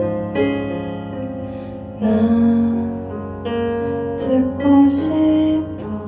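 A slow, soft ballad: sustained piano chords played on a Kurzweil SP2X stage piano, with a woman singing gently over them, her voice clearest in the second half.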